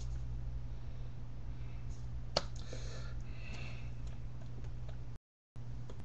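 Steady low electrical hum and hiss picked up by a webcam microphone, with one sharp click a little over two seconds in and some soft rustling just after it. The sound cuts out completely for a moment about five seconds in.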